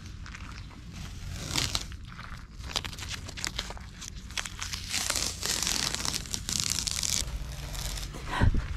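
Masking tape being peeled off a freshly painted boat hull along the boot line: a crackling, ripping tear in several pulls, the longest about five to seven seconds in.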